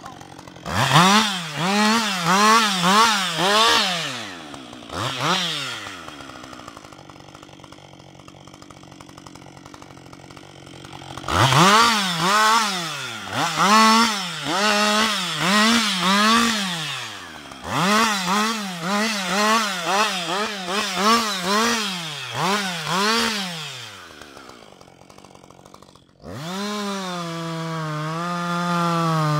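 Husqvarna 560 XP two-stroke chainsaw revved in quick bursts, about two a second, as it trims branches off a felled log, dropping back to idle between runs. Near the end it goes suddenly to steady full throttle, dipping slightly as the chain cuts into the log.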